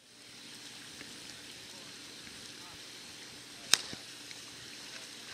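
Wooden raft burning as a bonfire in shallow water: a steady hiss of the fire, with one loud sharp pop about three and a half seconds in and a smaller pop just after.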